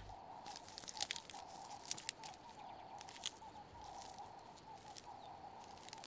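Faint crackling and rustling of dry leaves as a ground hornbill pushes fresh nest material into place with its bill, with a few sharp clicks in the first half.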